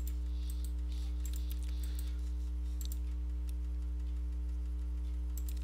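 Steady low electrical hum and tone of the recording setup, with faint scattered clicks of a computer mouse and keyboard being worked.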